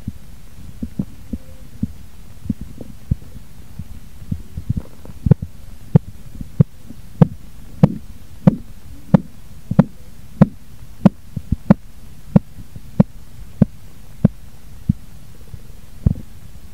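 Korotkoff sounds heard through a stethoscope over the brachial artery as a manual blood-pressure cuff deflates: regular pulse taps about one and a half a second, faint at first, loud from about five seconds in, then fading away near the end as the cuff pressure drops towards the diastolic pressure. A steady low rumble lies under the taps.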